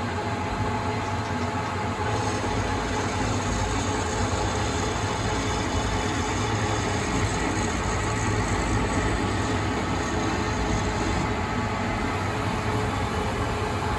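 Proto-Trak CNC lathe running steadily with the spindle turning: a continuous machine hum with a few steady tones. The threading tool is taking light spring passes over an almost finished ACME thread, letting tool and part deflection clear out.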